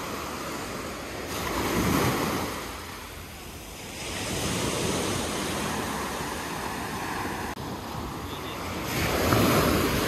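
Small waves breaking and washing up on a sandy beach, swelling louder about two seconds in and again near the end, with wind rumbling on the microphone.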